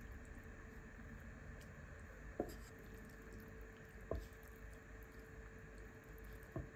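Wooden spatula spreading a cooked ground beef and vegetable mixture over mashed potato in a glass baking dish: soft, quiet squishing of the mince, with three light knocks of the spatula against the dish.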